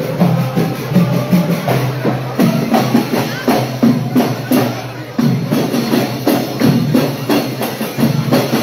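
Loud wedding music driven by a fast percussion beat of about three to four strokes a second, with voices mixed in.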